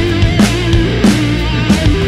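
Background rock music: electric guitar over a steady, driving drum beat.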